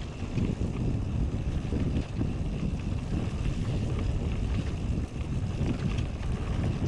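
Wind buffeting the microphone and mountain bike tyres rolling fast over a packed-dirt trail, a steady low rumble with faint clicks and rattles over bumps.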